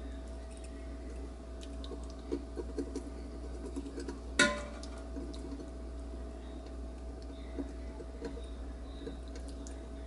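A basting brush dabbing sauce onto chicken wings on a metal wire rack inside a cooker pot: soft scattered taps and ticks, with one sharp metallic clink that rings briefly about four and a half seconds in. A steady low hum runs underneath.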